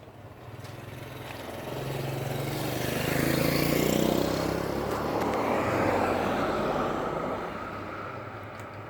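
A motor passing close by: its pitched hum and hiss swell from about a second in, peak around the middle, then fade toward the end.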